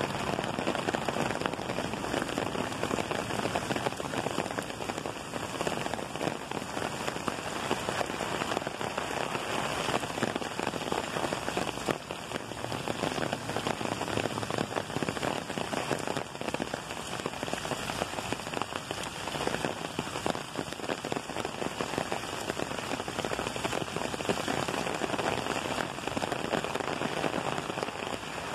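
Steady rain falling on wet pavement, an even hiss with a dense patter of drops.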